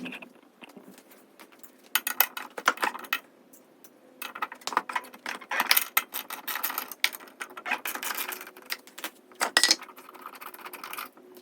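Metal clinking and rattling of a wrench working the blade bolt loose on a Honda twin-blade mower, and of the blades being handled, in quick runs of clicks with short pauses between them.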